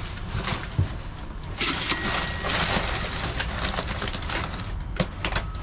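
Cash-register 'ka-ching' sound effect about two seconds in: a short rattle, then a bell ringing for about half a second. Faint knocks and rustling of cardboard boxes being shifted surround it.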